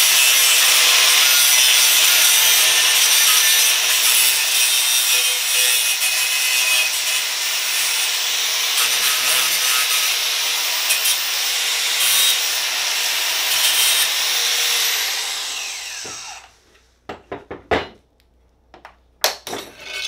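Cordless Festool AGC 18-125 angle grinder with a cut-off wheel cutting through an aluminum bar, running loud and steady for about fifteen seconds, then spinning down with a falling whine. A few metallic clanks follow near the end as the grinder and the cut metal are set down.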